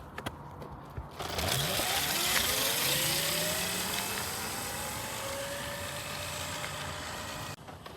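A 3,000-watt electric motor run from an 80-volt battery spins up with a whine that rises in pitch and then levels off, with a rushing noise over it. It starts about a second in and cuts off suddenly near the end.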